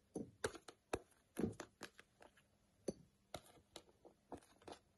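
Sliced ginger being picked off a ceramic plate by hand and dropped into a glass: a soft run of irregular clicks and light taps, a few each second.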